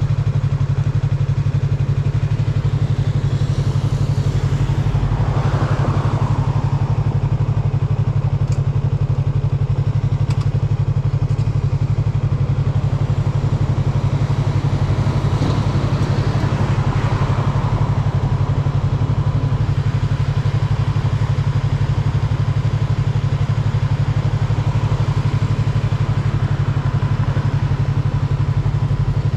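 Yamaha MT-03 motorcycle running at a steady cruising speed, an even engine drone that holds level throughout, with brief swells of passing noise about five and sixteen seconds in.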